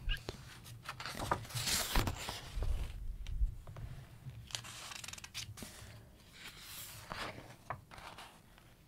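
Glossy pages of a large hardcover book being turned, the paper swishing and rustling several times, with short clicks in between.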